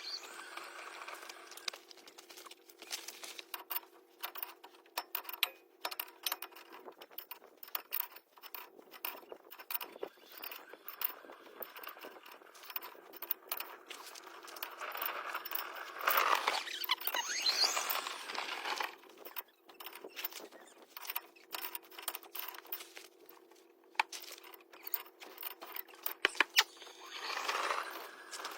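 Metal hand tools and steering parts clinking and scraping in many short, sharp clicks while inner tie rods are fitted, with a faint steady hum underneath and two louder stretches of scraping, about sixteen seconds in and near the end.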